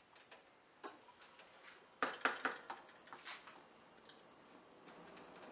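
Wooden spoon stirring carrots cooking in milk in a large pan, knocking and scraping against the pan: a few faint ticks, then a cluster of louder knocks about two seconds in.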